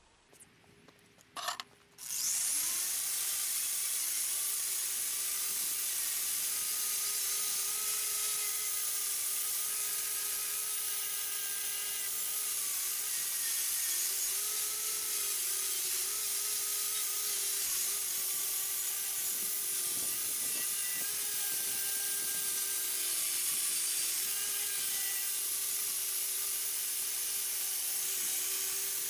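Angle grinder fitted with a wire wheel, stripping old paint off the metal body of a shaper. It starts about two seconds in and runs as a steady whine with a strong hiss.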